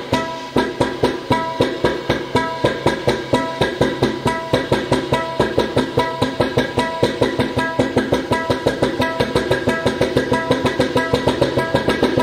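Tabla and a two-headed barrel drum played by hand in a steady rhythm of ringing, pitched strokes that gradually speeds up.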